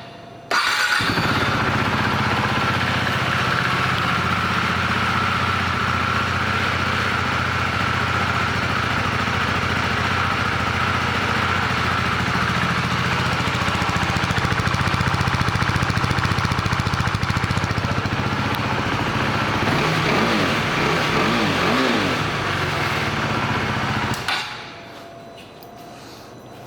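A KTM 390 Duke's single-cylinder four-stroke engine starts about half a second in and idles steadily. It is revved a few times about twenty seconds in and is switched off a couple of seconds later.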